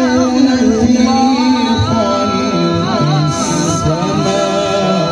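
A man's voice reciting the Quran in the melodic Egyptian (misri) style of tilawat, drawing out long wavering notes with ornamented turns.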